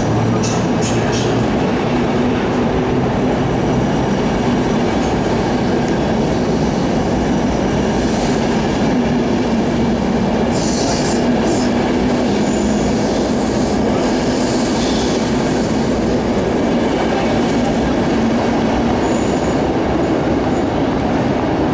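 EP09 electric locomotive and its intercity coaches running through the station: a steady rumble of wheels on rails with a low hum. High wheel squeals come twice around the middle.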